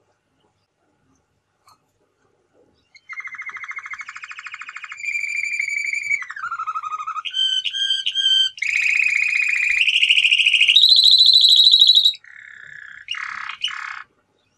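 Male domestic canary singing: after a few seconds of silence, a long song of rapid trills, each held for about a second before jumping to a new pitch, rising higher near the end before stopping.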